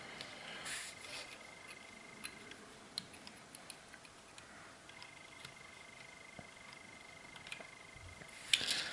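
Faint, scattered small clicks and ticks of fingers handling thin stranded wires on a model railway coach's LED circuit board, over a faint steady high tone, with a louder rustle near the end.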